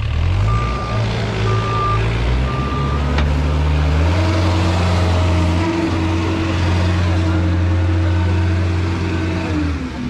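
A vehicle's reversing alarm beeps three times about a second apart over a running engine. The engine's pitch steps up about four seconds in, holds steady, then drops back near the end.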